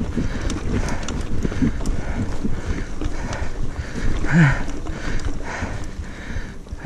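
Mountain bike rolling down a rough dirt trail: wind buffeting the microphone and the bike rattling over the ground, with the rider breathing hard in quick regular puffs and one short voiced exhale about four seconds in.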